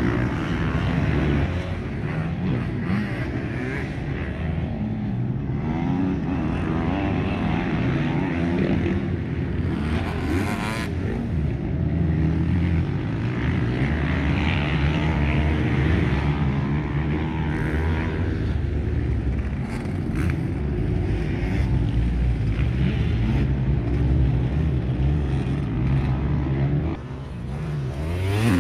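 Motocross bike engines running hard on a dirt track, their pitch rising and falling with throttle and gear changes. Near the end a bike revs up sharply as it accelerates.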